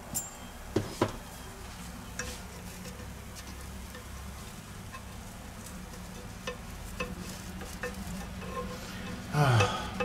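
A thin batter wrapper sizzles faintly in a non-stick frying pan. About a second in, a spoon clinks twice against a stainless-steel pot of batter, and light clicks of a spatula follow. A short low voice sound comes near the end.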